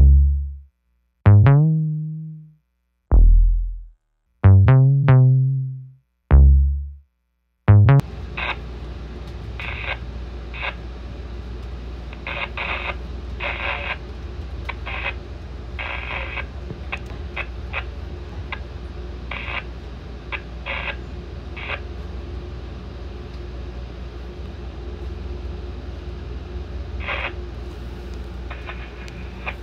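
Electronic background music ends with a few heavy, falling bass hits, stopping about eight seconds in. Then comes the steady low rumble of an Amtrak passenger train heard from on board, with irregular short clacks.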